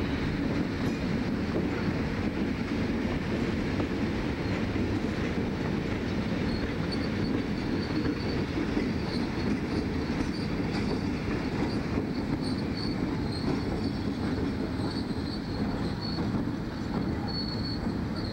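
A consist of three Alco RS-11 diesel locomotives moving light, their turbocharged V12 diesels running with a steady low rumble. From about seven seconds in, short high-pitched wheel squeals come and go.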